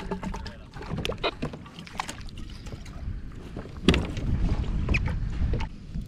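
Water sloshing against a plastic fishing kayak's hull with wind on the microphone, and a few sharp knocks and clicks from rod and reel being handled, the loudest about four seconds in.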